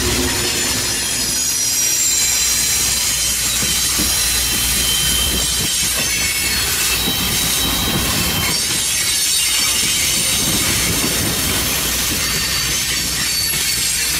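LORAM rail grinder train passing at close range: a steady low rumble of its diesel power cars and wheels on the rail, under a dense hiss and a steady high-pitched whine.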